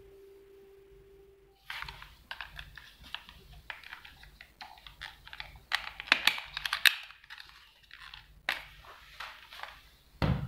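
Irregular clicks and knocks of hard-plastic cordless drills being handled and set down on a table, loudest a little past the middle.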